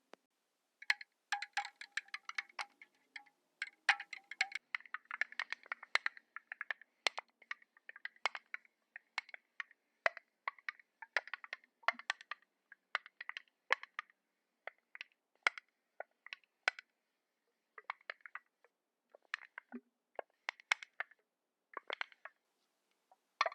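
Quick tapping and clicking on a makeup foundation container and its packaging, each tap with a short bright ring; the taps come thick and fast, then thin out toward the end.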